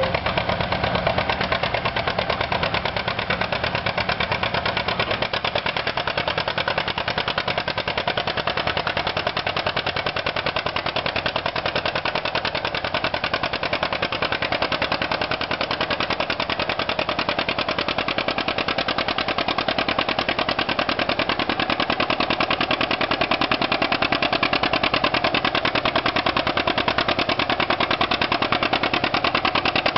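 1951 John Deere G's two-cylinder engine popping steadily under load as it pulls a weight-transfer sled.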